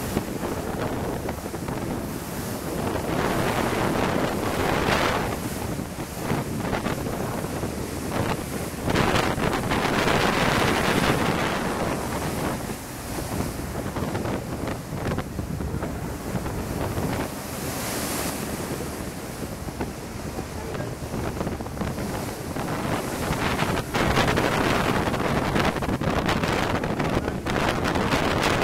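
Wind buffeting the microphone over the rushing wash of waves and the wake churning along a passenger ferry's hull, swelling and easing in gusts every few seconds.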